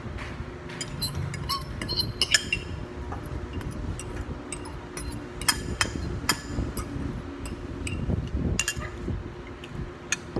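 A metal fork and dishes clinking: many irregular, sharp, ringing clinks of the fork against a ceramic plate and a glass bowl as noodles are tipped out and eaten.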